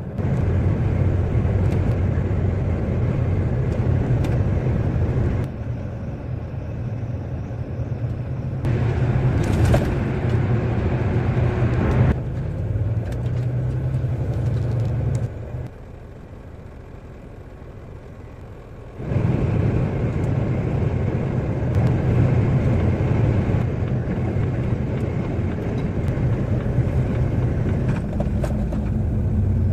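Truck's diesel engine and road noise while driving, a steady low drone that shifts with load several times, drops noticeably quieter for a few seconds around the middle, then picks up again.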